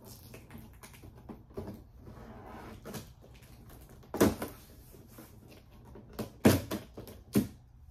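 Tape seal on top of a cardboard box being cut and pulled open, with faint scraping and several sharp knocks on the cardboard, the loudest about four seconds in and two more about six and a half seconds in.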